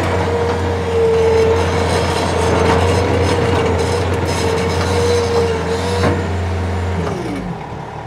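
Bobcat T450 compact track loader's 61 hp 2.4-litre four-cylinder turbo diesel running up on throttle as the rubber-tracked machine drives and turns on gravel, with a steady high whine over the engine drone. About seven seconds in, the pitch falls and the engine drops back as the loader stops.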